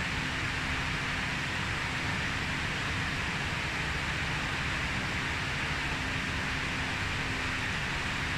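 Steady machine hum and hiss from running equipment, with a faint steady low tone and a low rumble beneath, unchanging throughout.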